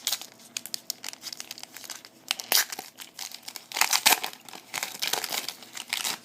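Trading-card pack wrapper crinkling and tearing as it is opened by hand, in a string of sharp crackles, loudest about two and a half and four seconds in.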